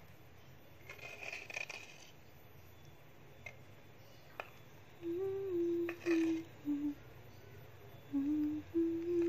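A person humming a few held notes of a tune with closed lips, starting about halfway through and stepping up and down in pitch. Earlier, about a second in, there is a brief scrape from a metal spoon against the clay bowl.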